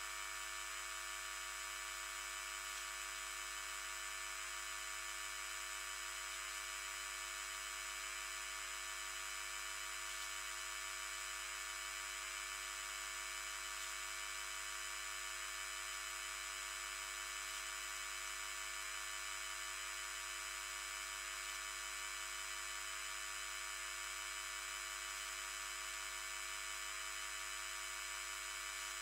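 The 50 Hz mains voltage of the electrical grid played as audio through a high-pass filter set around 2–2.5 kHz, so only its higher-order harmonics are heard: a steady, unchanging buzz made of many fixed high tones at once. The dense harmonic content comes from something connected to the grid that generates a lot of harmonic noise.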